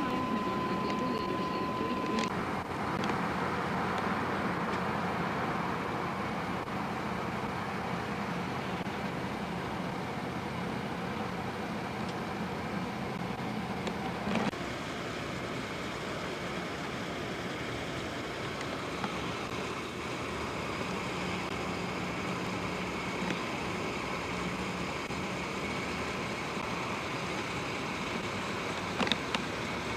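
Steady car engine hum and road noise under VHS tape hiss. A steady high tone for the first two seconds stops with a click, and a few single clicks come later.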